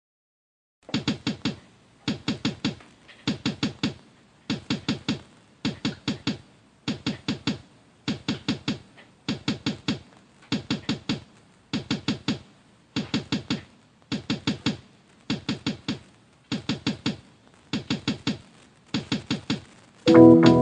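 Rhythmic knocking as a song intro: four quick knocks, repeated about every 1.2 seconds. A sustained organ-like keyboard chord comes in just before the end.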